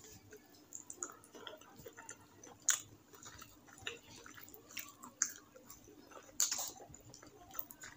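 Wet chewing and mouth sounds of someone eating rice and curry by hand, with soft squishing of fingers mixing rice on a plate. A few short sharp smacks stand out, the loudest about two and a half and six and a half seconds in.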